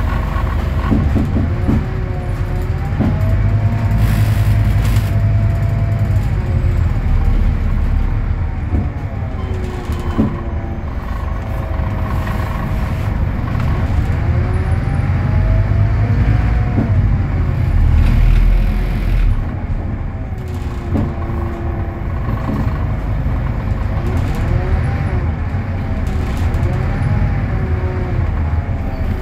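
Scania K320UA articulated bus running, its DC09 five-cylinder diesel and ZF Ecolife automatic gearbox pulling through the gears, with a whine that rises and falls over and over. A few sharp knocks sound along the way.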